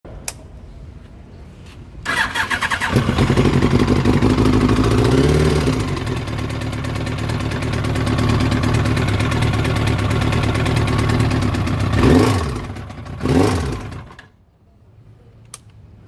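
Yamaha R1 inline-four motorcycle engine cranked on the starter and catching about two seconds in, running steadily with a brief blip, then revved twice and shut off. The owner says this engine has started knocking.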